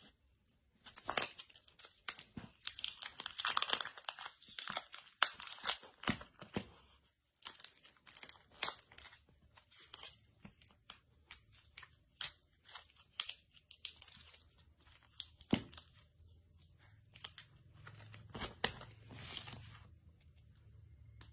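Adhesive phone-wrap film being peeled and handled: a run of crackling, ripping sounds, densest over the first few seconds, then scattered crackles.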